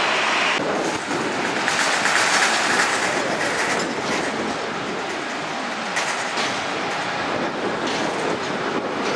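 Jet engines of a taxiing Boeing 777-300ER, a steady loud rushing roar at taxi power. The sound changes abruptly about half a second in.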